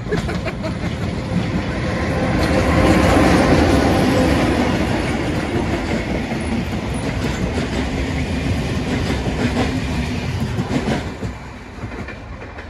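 Electric locomotive-hauled passenger train passing close by, its wheels clattering over the track. Loudest a few seconds in, then fading near the end as the last coach moves away.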